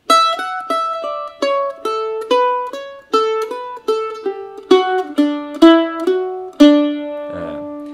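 F-style mandolin picked slowly, note by note, through a short twisty single-note phrase that mixes fretted notes with open strings, ending on a note left ringing. The loudest notes reach full scale and clip.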